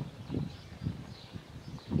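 Red-cowled cardinal giving a few faint high notes between song phrases. The loudest sound is a string of low, muffled thumps about twice a second.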